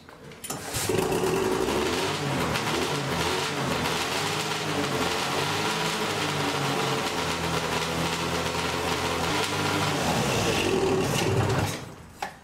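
580cc two-stroke twin hovercraft engine on its first test fire: it starts about half a second in and runs unevenly at a low idle, its pitch wandering up and down, then dies out a little before the end.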